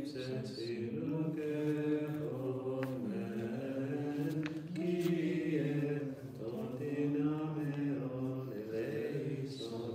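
Byzantine chant: voices sing long, drawn-out melismatic notes over a steady low held note.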